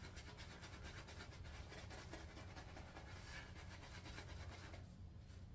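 Faint, rapid scratchy swishing of a shaving brush working up lather, which stops about five seconds in.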